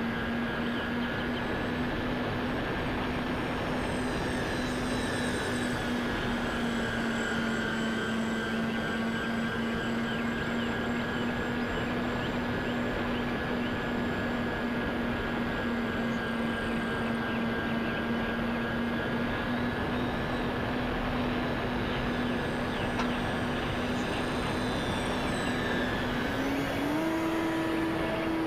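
Electric motors and propellers of a Dynam Skybus (DC-3) RC model plane, heard from its onboard camera in flight: a steady motor whine over a rushing wind noise. Near the end the whine steps up in pitch.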